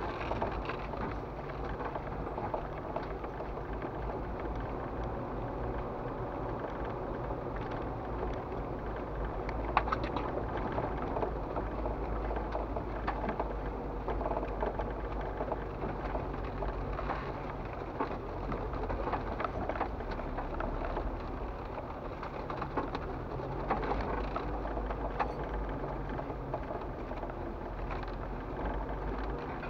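Off-road vehicle crawling along a wet dirt trail: steady low engine and drivetrain rumble with a patter of small knocks and splashes from the tyres going through puddles and over gravel, and one sharper knock about ten seconds in.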